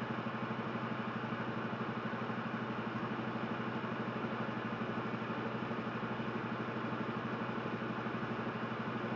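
Semi truck's diesel engine idling steadily, heard from inside the cab, with a fast even pulse.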